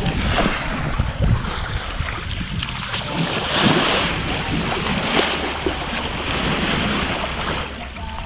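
Sea water rushing and splashing along the bow of a wooden gaff-rigged sailboat under way under sail, with wind buffeting the microphone; the spray swells louder about three and a half seconds in.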